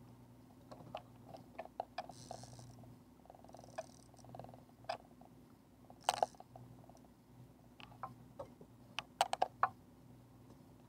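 Fishing rod and reel being worked while a hooked striped bass is reeled in: irregular sharp clicks and knocks of the reel, rod and gear over a low steady hum. The loudest knock comes about six seconds in, and a quick cluster of knocks comes just past nine seconds as the landing net is picked up.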